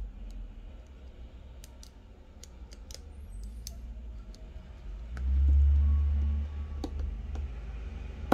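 Scattered small metal clicks and taps of a precision screwdriver working a tiny screw into the back plate of an iPhone screen. About five seconds in, a low rumble lasts a second or so.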